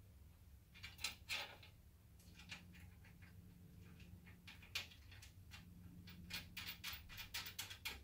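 Light metallic clicks and taps of small machine screws and steel rack-rail parts being handled and fitted by hand. There are two clicks about a second in, one near the middle, and a quick irregular run of clicks in the last two seconds.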